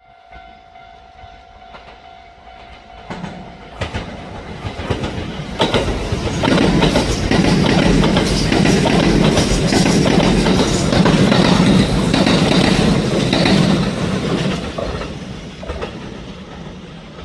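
Train passing by, its wheels clicking over the rail joints: it builds up over a few seconds, stays loud for about eight seconds, then fades away.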